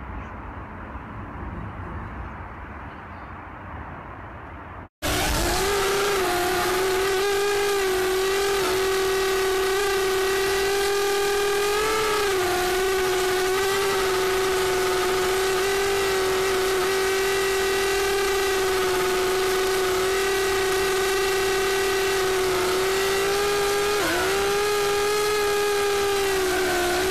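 Cheerson CX-30S quadcopter's small motors and propellers whining steadily, picked up by the drone's own onboard camera microphone; it starts abruptly about five seconds in, and its pitch dips and recovers briefly twice as the throttle changes.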